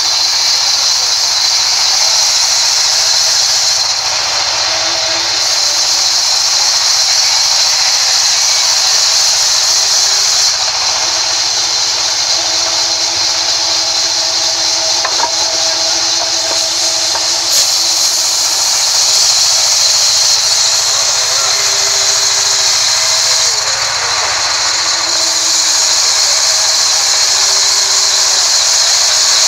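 Large sawmill band saw blade cutting lengthwise through a rain tree log: a loud, steady, high-pitched hiss of the blade running through the wood.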